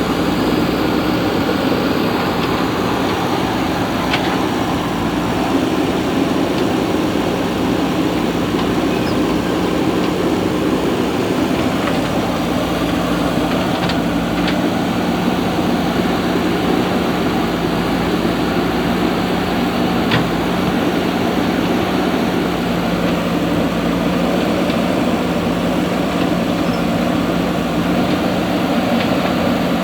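Diesel engine of a JCB 3DX backhoe loader running steadily, with a few faint clicks over it.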